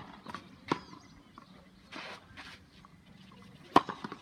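Tennis balls being struck by rackets and bouncing on a clay court: sharp pops less than a second in and a louder one near the end, with a few smaller knocks after it.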